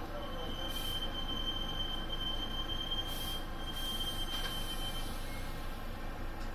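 Hankyu 5000 series electric train braking to a stop at a platform, heard from the cab: a steady high squeal rings for about five seconds and dies away as the train halts. Three short hisses come through along the way.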